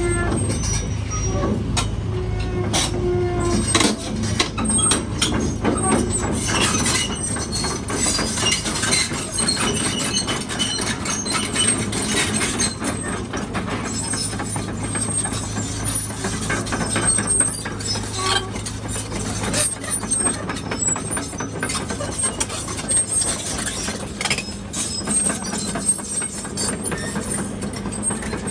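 Tracked excavator working through broken concrete debris: its diesel engine drones steadily under a stream of metallic clanks and knocks from the bucket and steel tracks on rubble, with short high-pitched squeaks scattered throughout.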